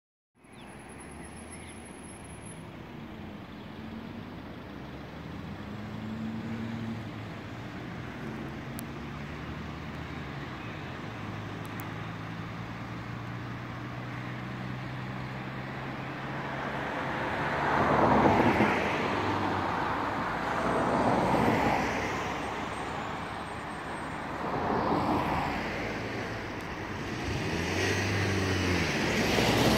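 Road traffic: a steady low engine hum, then from about halfway through, vehicles passing one after another, each swelling and fading over a couple of seconds.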